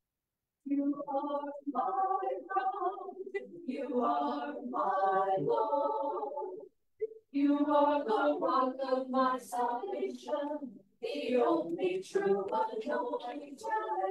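Small choir of mixed men's and women's voices singing unaccompanied, in phrases broken by short silent breaths about seven and eleven seconds in.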